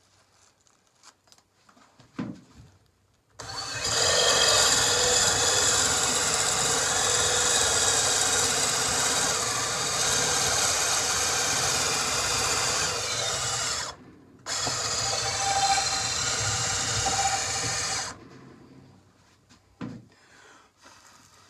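Cordless drill spinning a hickory dowel as it is forced through a steel dowel die, the die shaving the wood down to 3/8 inch. The steady, loud cutting run starts about three seconds in and lasts about ten seconds, stops for a moment, then runs about four seconds more before stopping.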